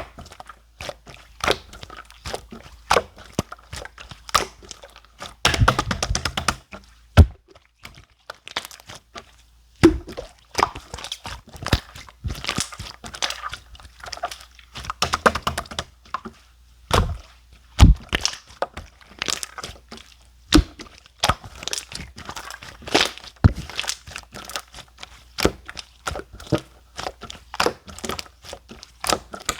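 Clear slime being pressed and squished by hand, giving an irregular run of sharp clicks and pops, with a couple of denser crackly stretches.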